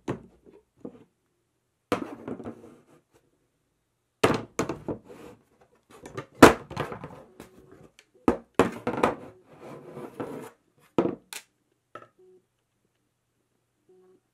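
Mighty Hoop magnetic embroidery hoop being handled, its plastic frame and metal bracket clacking and knocking as the magnetic frames are fitted together. Several sharp clacks come in a scattered series, the loudest about halfway through.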